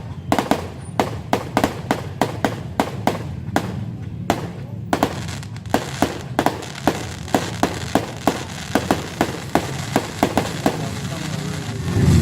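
New Year fireworks going off in a rapid, irregular string of sharp bangs, about two to three a second, with a dense crackle between the reports from about five seconds in.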